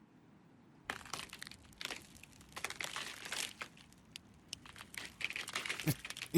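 Footsteps crunching and scuffing on snow-covered ice, an uneven run of crackling crunches starting about a second in.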